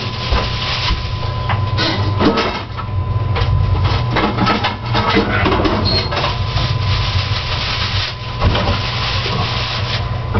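Irregular rustling and small knocks from things being handled, over a steady low hum and a faint steady high tone.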